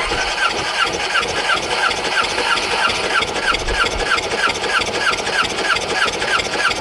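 Yamaha VX110 four-cylinder four-stroke jet ski engine cranking steadily on its electric starter for a compression test with the throttle held wide open. A high squeak repeats about three times a second as it turns over.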